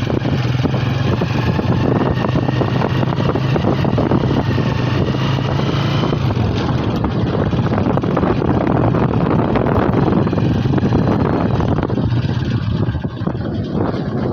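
Wind buffeting the microphone during a ride on a road, over a steady low engine hum that drops away about six and a half seconds in.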